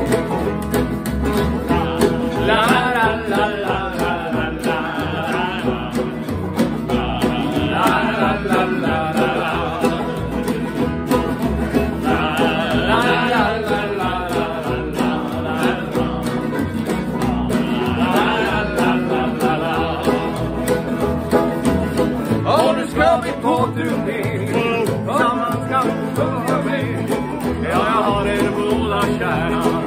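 Acoustic band playing an upbeat country-style song on acoustic and resonator guitars, upright double bass and washboard, with voices joining in.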